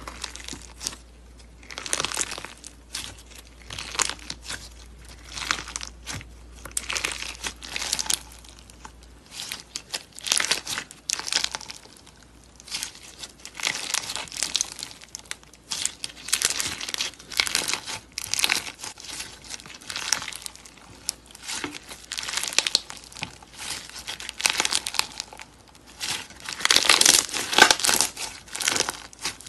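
Clear slime packed with beads being squeezed and kneaded by hand, crackling and crinkling with each squeeze, in bursts about once a second.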